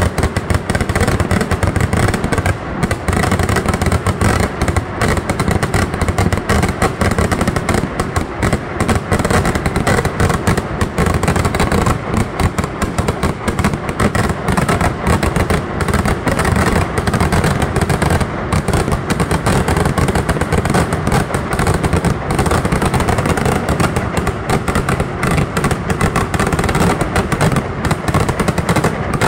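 Kerala temple-festival fireworks barrage (vedikettu): a dense, unbroken stream of bangs and crackling as shells are fired in quick succession and burst overhead, with no let-up.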